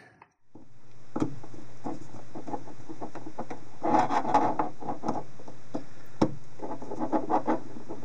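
A small screwdriver turns the screws that fasten a 2.5-inch solid-state drive into its metal laptop drive caddy. Two bouts of rasping and rubbing come as the screws are tightened, with a few sharp clicks as the drive and caddy are handled.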